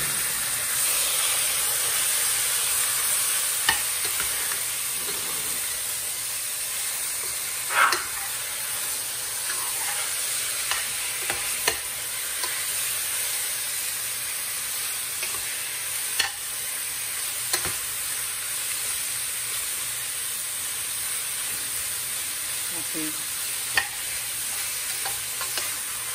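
Raw pork cubes frying and sizzling in a hot stainless steel pan, stirred with a metal utensil that clicks and scrapes against the pan every few seconds, the loudest clack about eight seconds in.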